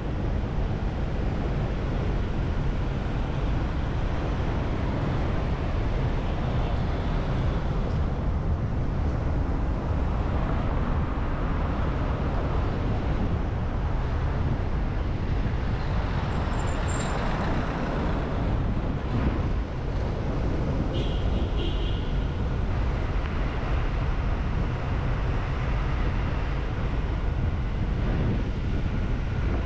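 Steady road and traffic noise from a car driving through city streets, a constant low rumble and hiss. A couple of short high-pitched tones come through about halfway and again a few seconds later.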